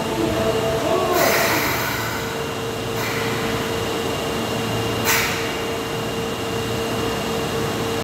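Osaka Metro 22 series subway train squealing to a stop at the platform, the squeal dying out about a second in with a burst of hiss. The stopped train then gives off a steady hum, with another short hiss about five seconds in.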